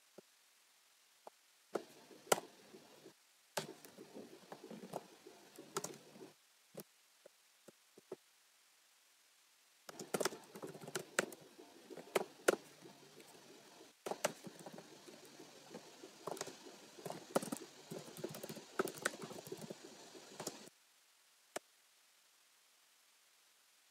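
Typing on a computer keyboard: irregular runs of key clicks. A run of a few seconds is followed by a pause broken by a few single keystrokes, then a longer run of about ten seconds that stops a few seconds before the end.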